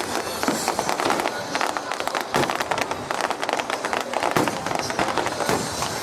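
Fireworks crackling in a dense, rapid run of sharp pops, with heavier bangs about two seconds and four and a half seconds in.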